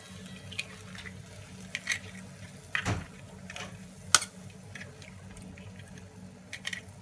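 Eggs cracked against a non-stick frying pan and dropped onto hot onion-tomato masala: several sharp shell taps and clicks, the loudest about four seconds in, over a soft frying sizzle and a low steady hum.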